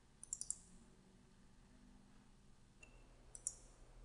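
Faint computer mouse clicks: three quick clicks about half a second in, then two more after about three and a half seconds, with near silence between.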